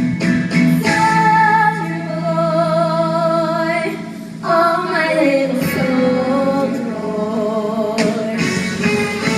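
Live band music with singers holding long, wavering notes over a steady low bass note. The sound dips briefly about four seconds in, then the voices come back on new notes.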